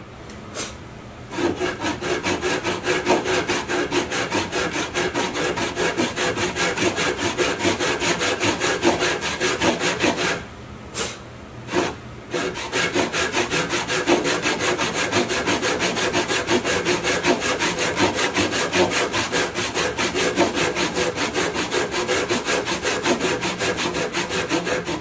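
Disston tenon saw cutting a tenon by hand in hard honey locust, in steady, even back-and-forth strokes. The sawing starts about a second in, stops for about two seconds around ten seconds in, then carries on.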